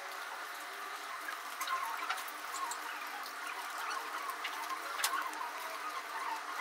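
Light ticks of a plastic stylus tapping on a pen-display drawing tablet, a few scattered taps over steady room hiss.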